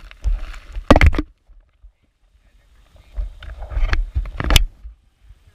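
Sheep bumping and rubbing against a camera on the ground: scuffing and rumbling handling noise on the camera body, with a sharp knock about a second in and two more near four seconds, and a short quiet spell between.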